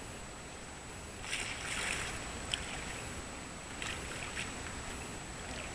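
Waterfront harbour ambience: a steady low rumble, with short hissy bursts a little over a second in and again near four seconds, and a single sharp click between them.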